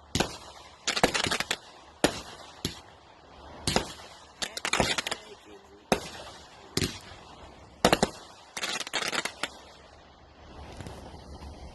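Consumer fireworks firing shot after shot, about one every two seconds: each a sharp bang followed within a second by a burst of crackling pops. The shots stop about ten seconds in, leaving a fainter steady hiss.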